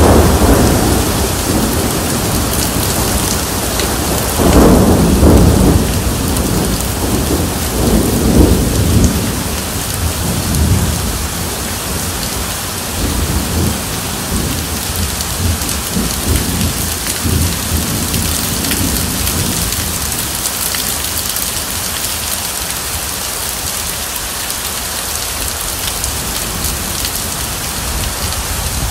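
Heavy rain pouring and splashing on the ground, with rolling thunder. The rumble begins right away, swells loudest about five seconds in and again around eight seconds, then dies away over the next few seconds, leaving steady rain.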